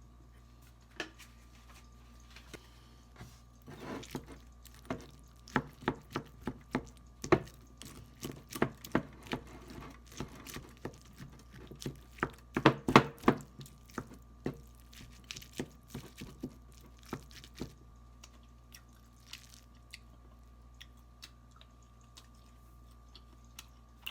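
A cat crunching dry kibble, with irregular sharp crunches and clicks that come thickest about halfway through and thin out near the end.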